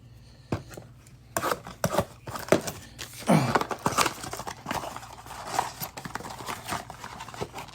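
Football trading-card pack wrappers crinkling and being torn open while cards are handled: a busy series of short rustles, rips and clicks.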